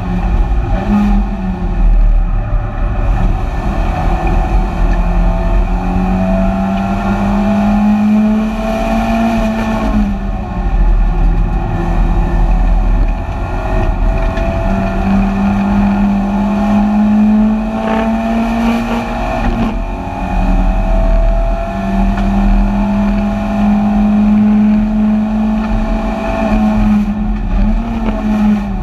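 BMW 318ti Compact's four-cylinder engine heard from inside the stripped race car's cabin, running hard at racing revs. Its pitch climbs slowly through long pulls and falls sharply about ten and twenty seconds in.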